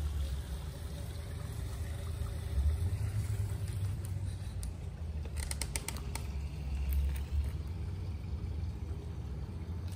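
Low outdoor rumble, swelling louder about three seconds and seven seconds in, with a quick run of small clicks a little past the middle.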